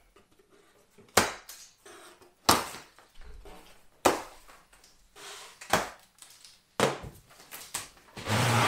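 White plastic packing straps on a large cardboard shipping box being cut and pulled free: about five sharp snaps and slaps, a second or so apart, then a longer scraping rustle near the end as a strap is drawn off across the cardboard.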